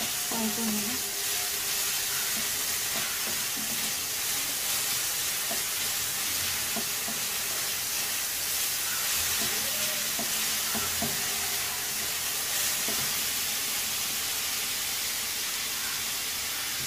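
Chopped onions sizzling steadily in hot oil in a kadai (wok), being lightly fried.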